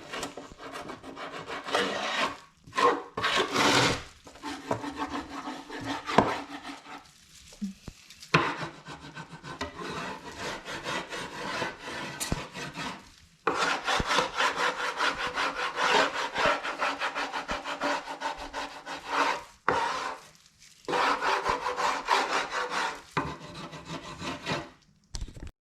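A hand scraper scraping over wood in rapid repeated strokes, in several long runs with short pauses between.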